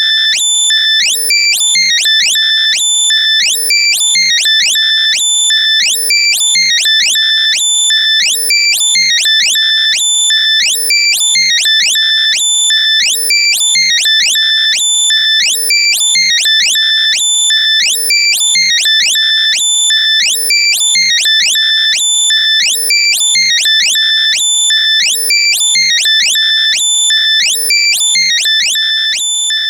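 Loud, compressed synthesized electronic alert: high-pitched beeps and quick rising chirps in a pattern that repeats about every two seconds. It is a locator sound made to be played through lost earbuds so they can be found by ear.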